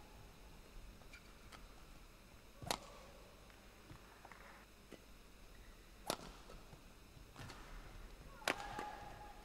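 Badminton rackets striking a shuttlecock: sharp, single hits a few seconds apart, with the loudest about a third of the way in, two-thirds of the way in and near the end. A short squeak of court shoes follows the last hit, as a player lunges.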